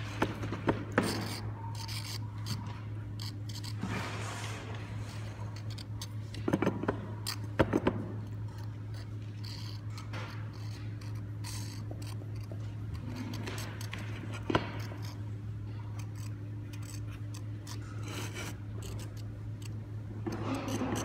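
Hand handling noise from a plastic squeeze bottle trailing glaze onto a ceramic tile: light clicks, rubs and scrapes as the bottle is squeezed and the tile is shifted on the table, a few of them about a second in, a cluster around the middle and one more later, over a steady low hum.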